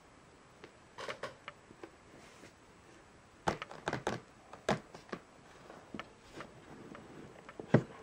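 Cardboard retail box being gripped and lifted off a wooden table by hand: a series of sharp clicks and knocks from the handling, with a cluster about halfway through and the loudest knock near the end.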